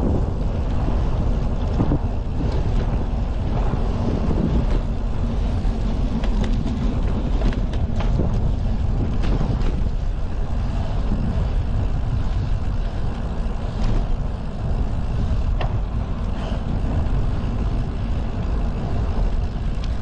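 Wind buffeting the handlebar-mounted camera's microphone and tyre noise as a bicycle rides along paved park paths, with scattered small knocks and rattles from bumps in the pavement.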